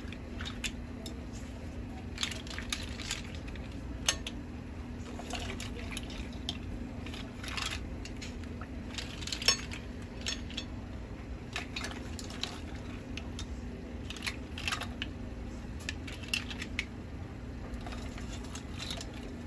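Cooked mussel shells clicking and clattering against each other, the pot and the plate as they are scooped out of their broth with a slotted ladle, with some sloshing of the broth. The clicks come irregularly, a few louder knocks among them, over a low steady hum.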